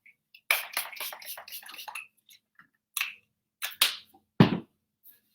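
Heat protectant spray spritzed onto hair: a quick run of hissing sprays for about a second and a half, then a few single sprays. About four and a half seconds in there is a louder, heavier thump.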